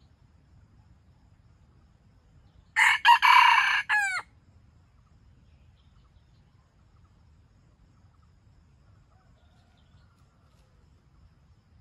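A rooster crows once, about three seconds in; the crow is loud and short, about a second and a half long.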